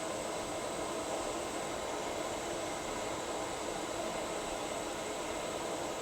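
Steady, even hiss of air blown by a fan, with no change in level or pitch.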